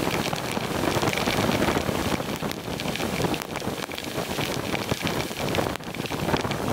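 A sudden torrential downpour hitting the sea surface and a small boat: a dense, steady hiss of heavy rain, peppered with many drops striking close by.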